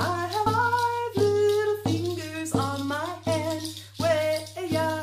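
A woman singing a counting song with held notes, to a steady hand-drum beat of about one stroke every 0.7 seconds.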